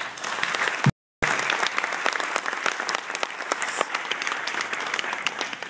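Audience applauding in a hall, a dense spatter of many claps. The sound cuts out completely for a moment about a second in, and the applause dies away near the end.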